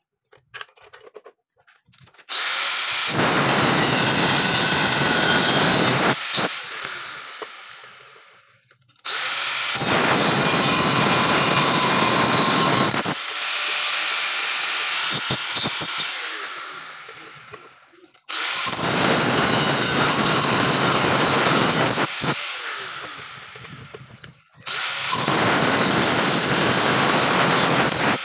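A power tool's motor run in four bursts of about three to four seconds each, each one fading away over a couple of seconds after it is released.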